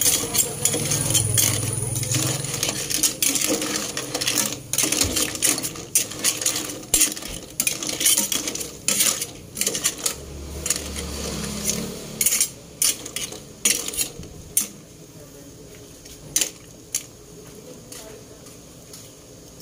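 Clams being stirred in a metal pot of broth: a rapid clatter of shells clinking against each other and the pot, thinning out to a few single clinks near the end.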